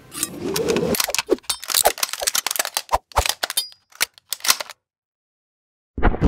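A rapid, irregular string of sharp gunshot cracks for about four seconds. They cut off abruptly to silence, and a loud boom hits near the end.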